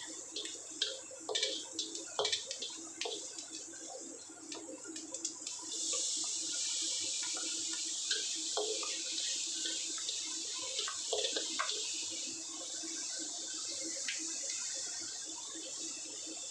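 Diced onions and green chillies sizzling in hot oil in a wok, with clicks and scrapes of a spatula stirring. About six seconds in the sizzling turns louder and steadier as chopped tomatoes go into the oil.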